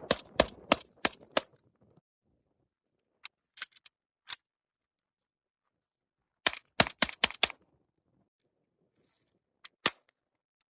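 Citadel Boss 25 semi-automatic 12-gauge shotgun fired rapidly in a mag dump: a quick string of about five shots, a few lighter clicks, then a second quick string of about five shots, and a couple more near the end.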